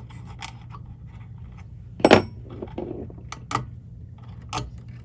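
Clicks and scrapes of small plastic wire connectors being worked loose inside a cassette deck, with a sharper knock about two seconds in.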